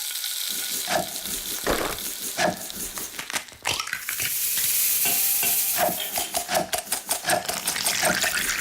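Kitchen recipe-preparation sounds: sharp knocks of utensils about once a second, a stretch of hissing about four seconds in, then a quicker run of clattering strokes.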